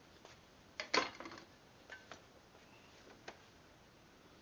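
A few light clicks and knocks of small parts being handled, the loudest cluster about a second in.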